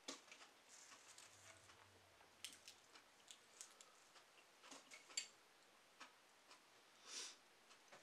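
Faint, scattered clicks and smacks of eating: chewing and cooked mussel shells being handled and pried apart. A sharper click comes about five seconds in and a short swish near the end.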